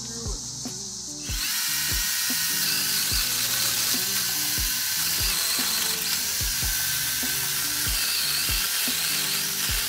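Saker brushless cordless mini chainsaw, mounted as a pole saw, running and cutting into an overhead tree limb; its loud high-pitched noise starts suddenly about a second in. Background music with a steady beat plays underneath.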